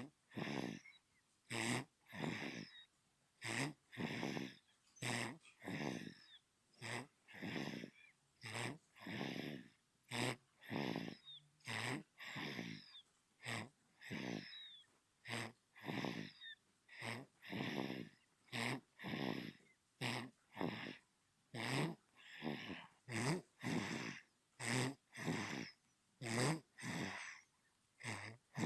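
Newborn baby snoring in its sleep: quick, regular snuffly breaths, a little more than one a second, each a short rasp with quiet gaps between.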